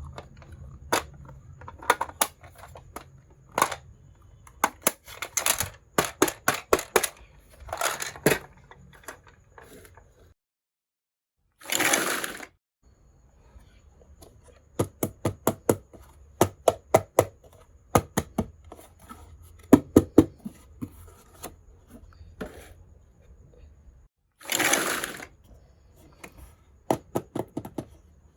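Small pieces of a miniature toy kitchen set clicking and tapping against each other as they are handled, often in quick runs of taps. There are two brief swishes of noise, one near the middle and one near the end.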